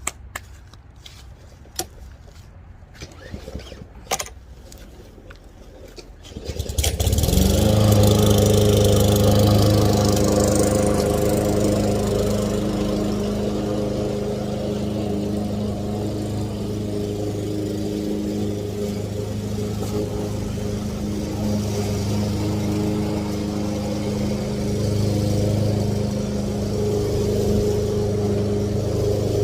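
A few sharp clicks, then about six and a half seconds in a lawn mower engine starts and settles into steady running at a constant pitch.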